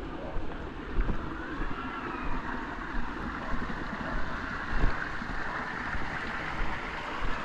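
Wind rumbling on the microphone of a walking camera, with soft thuds roughly once a second from footsteps on a dirt path.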